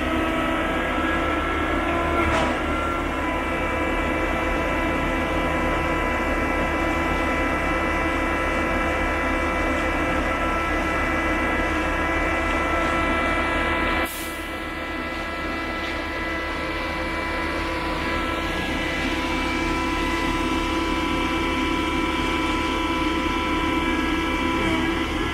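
A motor running steadily, a continuous hum made of several held tones, dropping suddenly in level about halfway through and slowly building back up.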